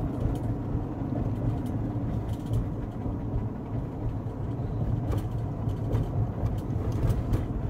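Steady engine and road noise inside a vehicle's cabin while driving at speed, with a low, even hum.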